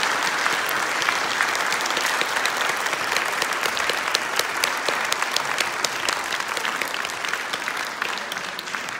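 Audience applauding, many hands clapping at once; the applause begins to die down near the end.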